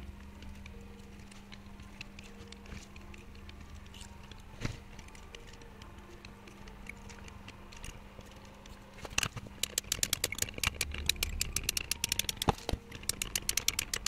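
Faint steady low hum, then from about nine seconds in a rapid run of sharp clicks and ticks, several a second, from small hand tools at work on an electronics bench.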